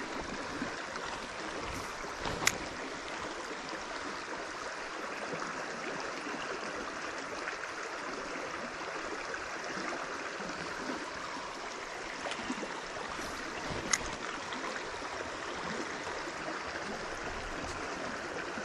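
Creek water running steadily over rocks, with a few brief sharp clicks.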